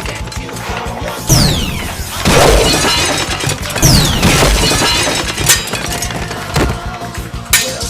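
Dubbed fight sound effects over background music: two falling whistling sweeps, each followed by a crash, then several sharp hits near the end.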